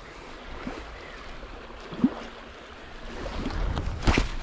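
Wind on the microphone over water sloshing in the shallows. There is a short sharp sound about two seconds in, and the rumble swells near the end with a louder knock or splash.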